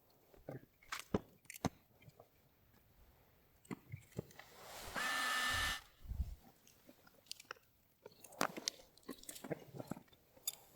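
Hand tools working on automotive wiring: scattered small clicks and snips, with a single rasp about five seconds in that lasts roughly a second.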